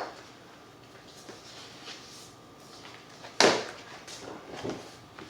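Paper and card being handled as a lithograph set is looked through: light rustling, with one short, louder slide or slap about three and a half seconds in and a couple of softer ones after it.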